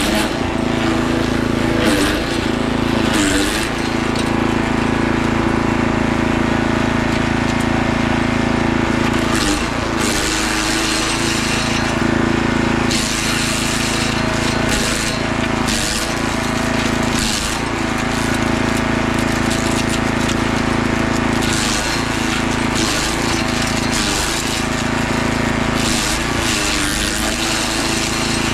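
Compact 6 hp wood chipper running at full speed while branches are fed through it. The engine note sags briefly again and again as the blades take a bite, with sharp cracking of wood being chipped.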